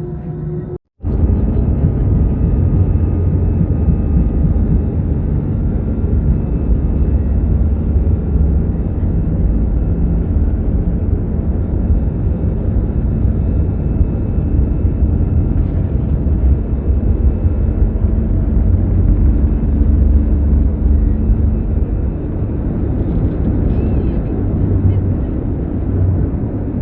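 Steady, loud cabin rumble of a jet airliner in flight: engine and airflow noise, heaviest at the low end. It cuts out briefly just under a second in.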